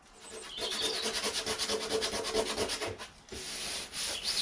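Coarse sandpaper scrubbing rapidly back and forth on the aluminium boot lid of a Rover P4, grinding corrosion off down to bare metal. The strokes are quick and even, with a brief pause about three seconds in.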